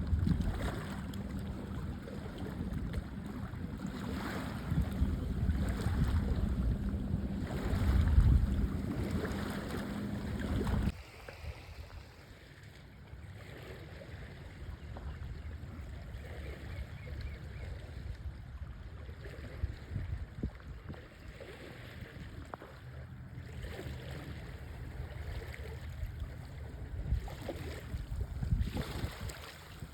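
Wind buffeting the microphone over water by the shore, with a steady low hum through the first part that cuts off suddenly about eleven seconds in, leaving a quieter, even wash of water and wind.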